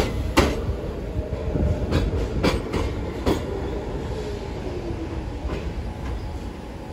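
R46 subway train wheels clacking sharply over rail joints several times, then a faint falling whine as a train slows into the station.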